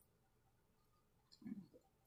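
Near silence, with one faint, short mouth sound about a second and a half in as she chews her food.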